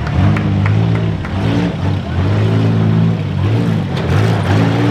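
Demolition derby car engines revving up and down over and over, with a few sharp knocks early on and again near the end.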